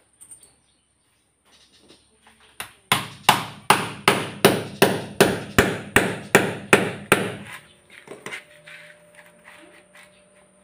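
Hammer striking a nail into a wooden board held against a concrete wall: about a dozen quick, even blows, roughly three a second, starting about three seconds in and stopping a little past the middle.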